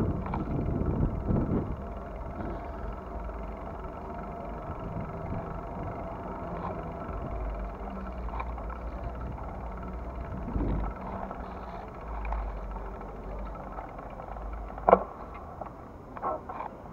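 Open-air ambience of a city square: a steady low rumble of distant traffic, louder in the first couple of seconds. A single sharp knock comes near the end.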